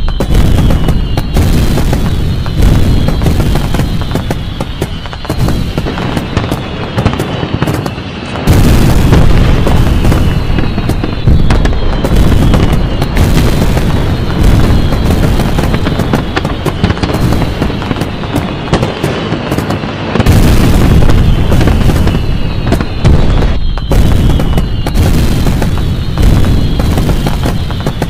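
Aerial fireworks display: shells bursting in a steady barrage of booms over dense crackling, with especially heavy bursts about eight and twenty seconds in.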